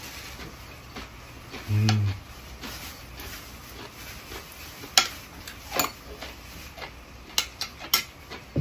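Metal chopsticks and spoon clicking against a ceramic rice bowl and plates while eating, a handful of sharp separate clicks in the second half. About two seconds in comes a brief low hum from the eater, the loudest sound.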